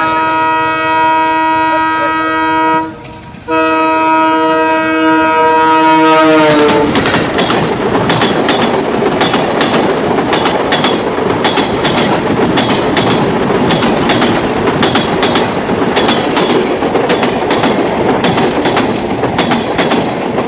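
Diesel locomotive's multi-tone horn sounding two long blasts, the pitch dropping at the end of the second as the locomotive passes close by. Then the passenger coaches run past at speed, their wheels clicking steadily over the rail joints.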